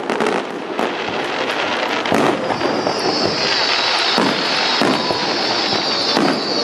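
Fireworks display: about six sharp bangs of shells bursting, irregularly spaced, over a constant rumble and crackle. From about two and a half seconds in, a steady high hiss of fountains firing from the water joins in.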